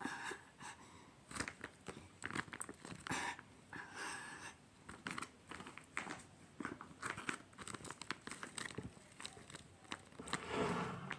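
Hands squeezing and handling a sticky taba squishy toy: soft, irregular crinkling and crackling.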